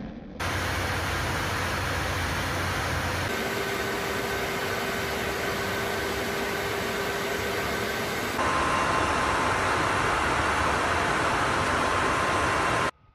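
Steady engine and airflow noise inside a Tu-22M3 bomber's cockpit in flight, with a faint steady whine over it. The noise and the pitch of the whine change abruptly twice, and the noise stops suddenly near the end.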